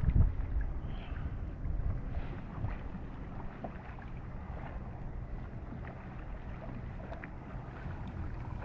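Wind rumbling on the microphone, with faint water sounds around a kayak at sea. The wind is strongest in the first second.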